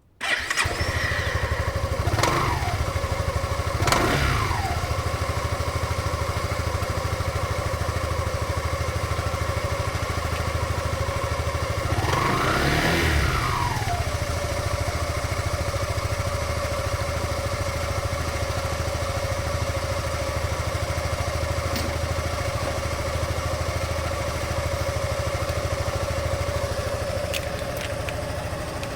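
Honda Forza 300 scooter's single-cylinder engine starting, then idling steadily. The rider blips the throttle three times: two short revs about two and four seconds in, and a longer rev around twelve seconds in.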